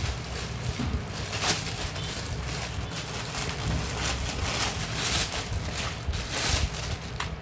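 Plastic packaging and a resistance band's pouch being handled, rustling and crinkling in irregular crackles over a steady low rumble.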